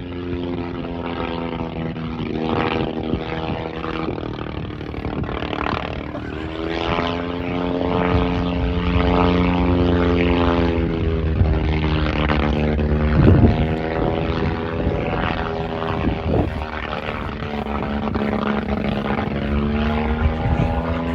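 Propeller engine of a World War One-style aeroplane flying overhead, its pitch drifting up and down as it passes, with a few sharp uneven bursts around the middle. The rough running is taken by onlookers for engine trouble.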